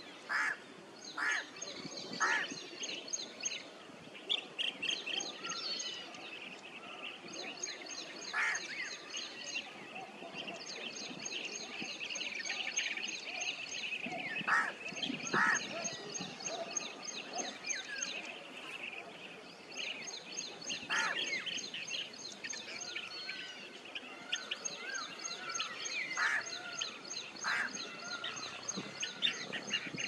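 Blue-tailed bee-eaters calling: short rolling calls, about ten in all at irregular intervals. Behind them runs a fast, high-pitched pulsing chatter that stops and starts every few seconds.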